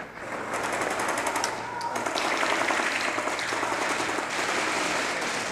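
Airsoft guns firing on full auto: a fast string of sharp clicks about half a second in, lasting a little over a second, then a dense, steady clatter.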